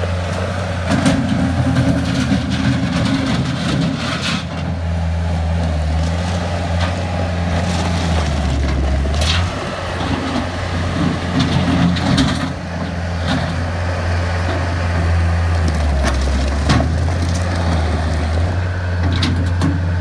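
Bobcat 773 skid steer loader's diesel engine running steadily as the machine drives and turns, its pitch shifting a couple of times as it is worked. Scattered clicks and knocks, typical of gravel under the tyres, sound over the engine.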